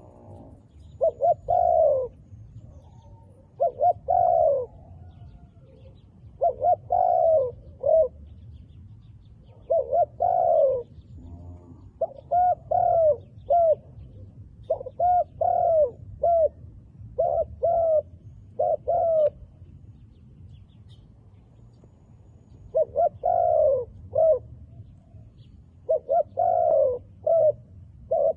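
Spotted dove cooing in repeated phrases of two to four soft, rounded notes, one phrase every two to three seconds, with a pause of a few seconds partway through.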